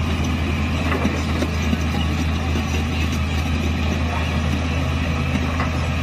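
A dump truck's diesel engine runs steadily with a constant low hum while its hydraulic bed tips up to dump a load of soil.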